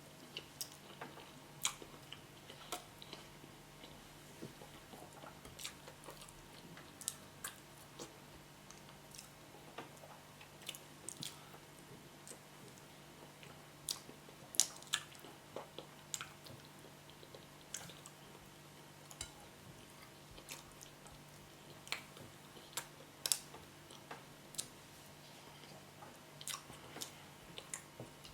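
A person chewing a mouthful of yam with spinach, with soft wet mouth clicks and smacks coming at irregular intervals, a few of them louder.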